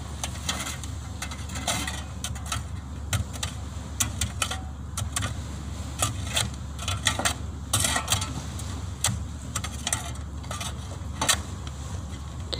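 Shovel blades scraping and clinking against a steel bow ramp as mud is shovelled off it, in irregular strokes. Under them runs the vessel's engine as a steady low drone.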